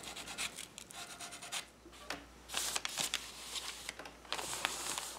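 Rapid short scratching strokes of folded sandpaper rubbing the painted foot of a wooden table leg, followed later by rustling as a hand smooths the cloth and paper around the leg.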